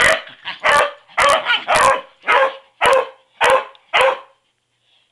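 Dog barking in a quick, even run of about eight barks, roughly two a second, stopping about four seconds in.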